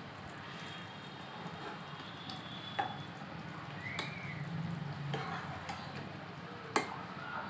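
Spatula scraping and knocking against a pan and a plate while pieces of fish in thick gravy are served out, with a few sharp clinks, the sharpest near the end.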